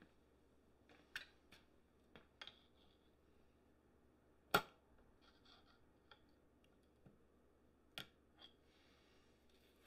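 Steel parts of a Wheel Horse 8-speed transaxle and a screwdriver clicking and scraping against each other as the gear cluster and shift shaft are worked into place by hand: scattered light clicks, one sharper metallic clack about halfway through and another near the end.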